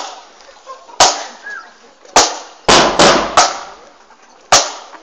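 Marching band bass drum beaten in a slow, steady beat of single loud, sharp strikes about a second apart, with a quick run of hits around the middle.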